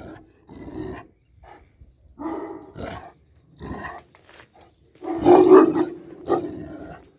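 Alabai (Central Asian Shepherd) dogs barking in several separate bursts, the loudest about five seconds in.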